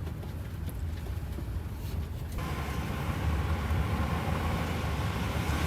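Low steady rumble of a motorhome on the move. About two seconds in, an even hiss joins it and holds.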